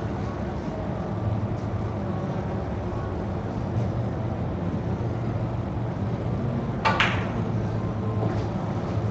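Snooker cue tip striking the cue ball once, a single sharp click about seven seconds in, over a steady low hum of the hall.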